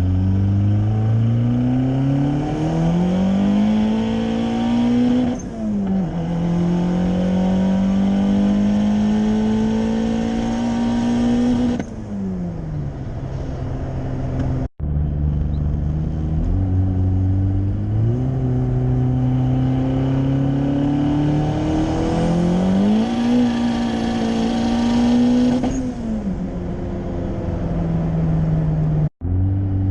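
Turbocharged Honda Civic's D15B four-cylinder accelerating hard in two edited runs: the revs climb, drop back at an upshift and climb again, then fall as the throttle is lifted. A thin high whistle sounds near the top of the second run.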